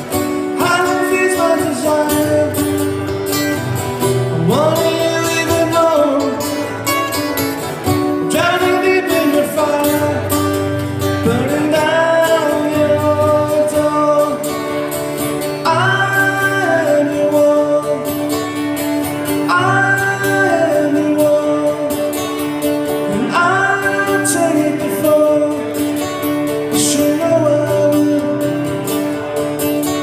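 Live acoustic song: guitar chords ring steadily under a vocal line of long held notes that slide up and fall away, one phrase every few seconds.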